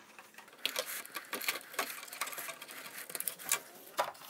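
The grey plastic side panel of an xTool P2 laser cutter being pulled off its housing and handled: a run of scraping and rattling clicks, with a couple of sharper clicks near the end.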